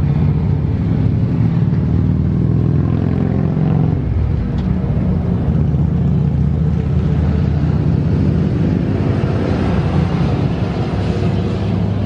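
A motor vehicle's engine running steadily close by, a low rumble that shifts slightly in pitch about four seconds in and again near the end.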